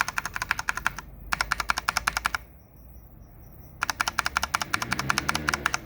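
Rapid, evenly spaced clicking of a Corsair K70 MK2 mechanical keyboard's key switches, about a dozen clicks a second, in three runs with short pauses between them.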